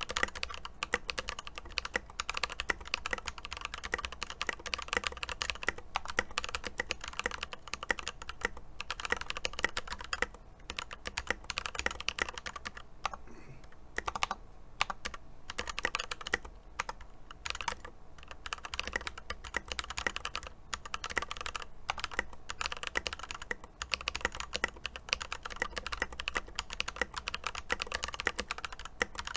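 Fast, steady typing on an Epomaker EP84 mechanical keyboard fitted with lubed Glorious Panda tactile switches and Tai-hao double-shot keycaps: a dense run of keystroke clacks with a few short pauses.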